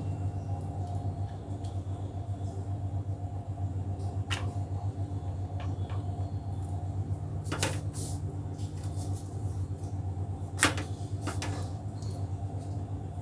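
A steady low hum with a few light knocks and taps over it: two close together about seven and a half to eight seconds in, and a sharper one about ten and a half seconds in.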